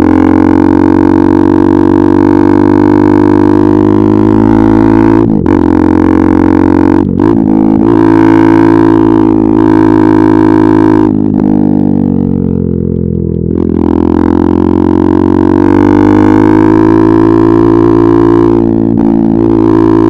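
KTM RC 390's single-cylinder engine through an Akrapovic exhaust, pulling under load with a steady, droning note. The note drops briefly about five, seven and nine and a half seconds in, at the gear changes, falls away off throttle around eleven to thirteen seconds, then climbs again.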